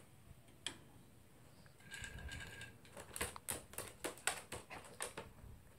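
Light clicks and taps on plastic, scattered at first, then about two a second in the second half. A faint, brief high tone comes about two seconds in.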